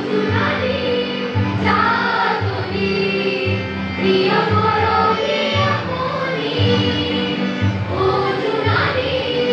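A group of girls singing together in unison, accompanied by harmonium and tabla, with a steady low drum beat of about two strokes a second under the sung lines.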